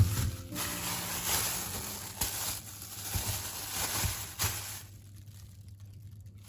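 Thin plastic produce bags crinkling and rustling as they are handled, with a few sharper crackles among them; it stops about five seconds in.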